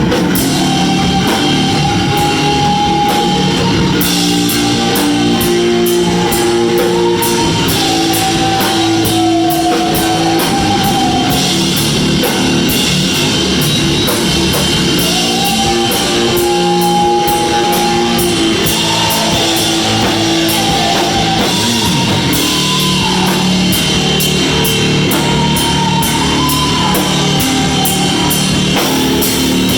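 Rock band playing live: drum kit and guitars, with a held melody line moving over them.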